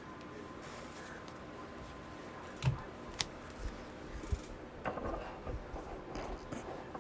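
Hanger boxes and cards being handled on a table: a dull thump about two and a half seconds in, a sharp click just after, then a few light knocks and some rustling of cardboard and card packaging.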